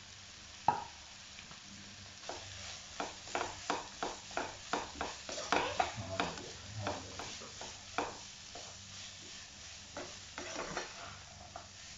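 Shredded cabbage, carrot and capsicum being stir-fried in a non-stick wok: a spatula scrapes and tosses the vegetables in quick strokes, about two or three a second, over a soft sizzle of oil. There is one sharp knock, the loudest sound, about a second in.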